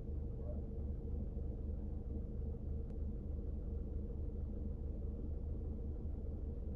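Steady low hum of a parked car's engine idling, heard from inside the cabin, with one faint tick about three seconds in.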